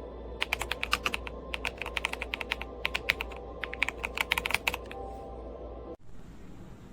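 Typing on an RK Royal Kludge S98 mechanical keyboard with pale green tactile switches and PBT keycaps: a quick, uneven run of key clicks that stops about five seconds in.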